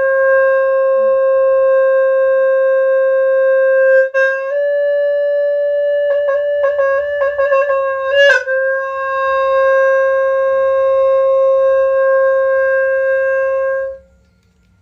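Khmer wind horn blown in one long held note. The pitch steps up slightly about four seconds in, and a run of quick breaks in the note follows between about six and eight seconds. The note then drops back to its first pitch and stops abruptly near the end.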